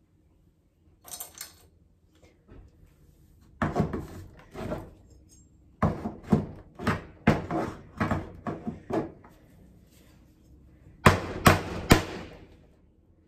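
Hammer striking old hardware on a wooden window frame: a series of sharp knocks in bunches, the three loudest close together near the end.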